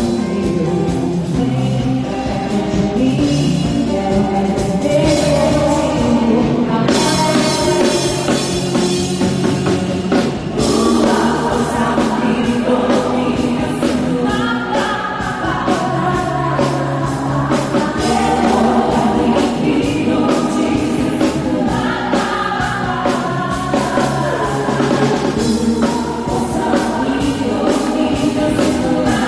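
Women's pop vocal group singing into microphones over loud amplified music during a sound check, several voices together. The sound fills out with a steady beat from about seven seconds in.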